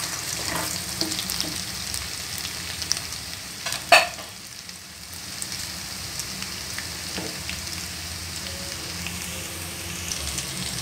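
Finely chopped garlic, ginger and green chilli sizzling and crackling in hot oil in a pan, stirred with a spoon at first. A single sharp knock about four seconds in.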